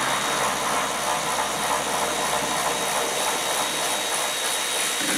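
Cordless drill-driver running steadily on a long extension bar, backing out a screw that holds the dash top down.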